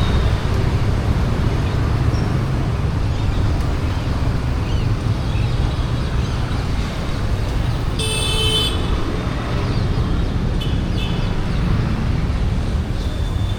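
Street traffic running steadily, with a vehicle horn honking once for under a second about eight seconds in and a couple of fainter, shorter horn toots later.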